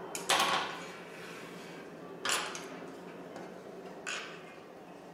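Tailor's scissors snipping through blouse fabric to trim off excess cloth: three separate cuts about two seconds apart, the first the loudest.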